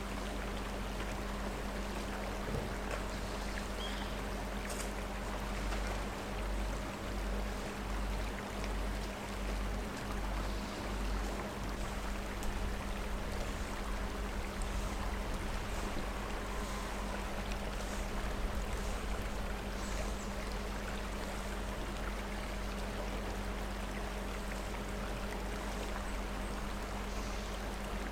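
Flowing river water rushing steadily, with a low throbbing rumble for several seconds about a quarter of the way in.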